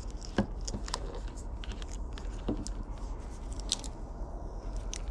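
Hands wrapping white electrical tape around a wiring harness: scattered light clicks and crinkles of the tape and the plastic-sheathed wires being handled.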